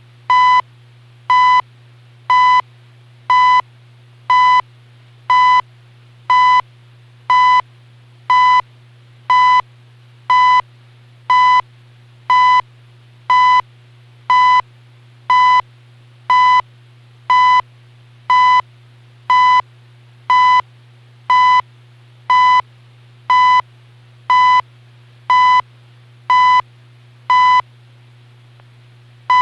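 CHU time-signal second ticks received on a portable shortwave radio tuned to 14.67 MHz: a short high beep once a second over a steady low hum. One tick is skipped near the end, as CHU does at the 29th second of each minute.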